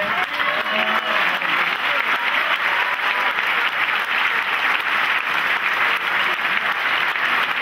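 An audience applauding in a hall, dense and steady clapping, with a few faint voices in the first second.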